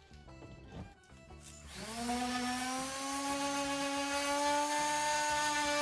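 Small electric sander switched on a little under two seconds in, its motor whine rising briefly as it spins up, then running steadily while it sands a dowel end flush with the wood.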